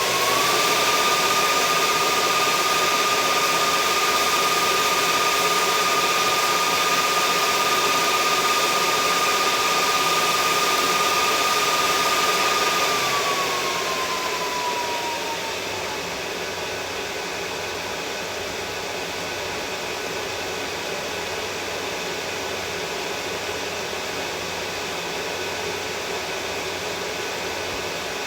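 Electric grinder running on steel with a steady high whine and hiss for about thirteen seconds, then switched off and winding down, its pitch falling over a few seconds. A quieter steady hum and hiss carries on after it.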